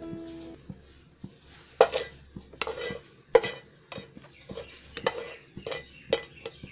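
Whole spices (cardamom pods, cloves, mace) being stirred dry in a hot pan, a spatula scraping and clinking against the pan in short strokes about every half second, as they are warmed before grinding into a masala.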